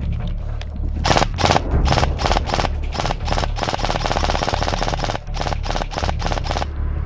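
Airsoft electric rifle firing in rapid bursts: several short bursts starting about a second in, one long burst of about two seconds in the middle, then more short bursts near the end.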